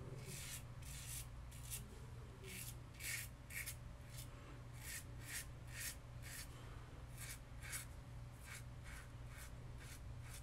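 RazoRock Lupo .95 double-edge safety razor scraping through lathered stubble in short strokes, a few a second with brief pauses, on the second pass of a wet shave. A steady low hum runs underneath.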